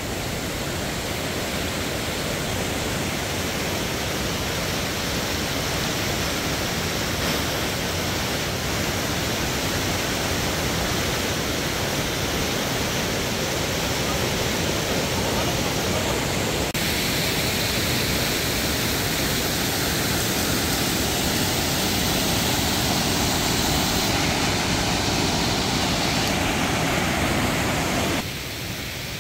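Kaaterskill Falls waterfall: a steady, even rush of falling water. It grows brighter in tone a little past halfway and drops slightly in level near the end.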